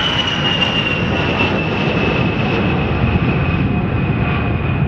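A-10 Warthog's twin TF34 turbofan engines at takeoff power as it climbs away: a steady jet rumble with a high whine that slowly falls in pitch.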